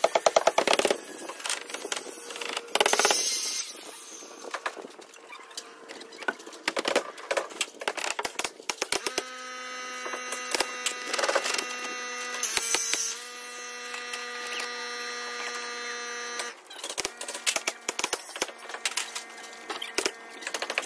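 Sped-up construction sound of siding being nailed on: rapid clicking and knocking from nail-gun shots and handling of the boards, run together into a dense patter. A steady hum with several tones starts about nine seconds in and cuts off about seven seconds later.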